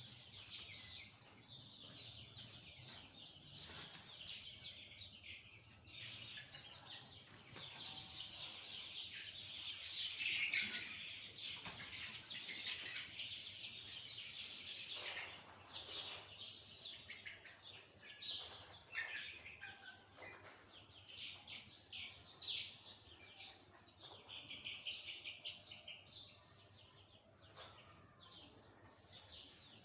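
A flock of young chickens chirping and peeping, with many short calls overlapping throughout.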